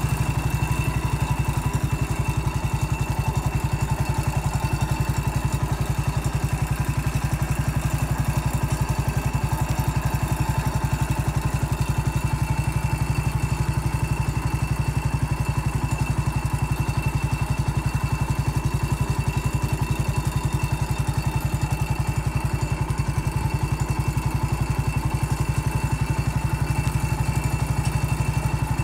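Garden tractor engine running at a steady speed, an even, rapid beat that does not rise or fall, as the tractor drives along a path.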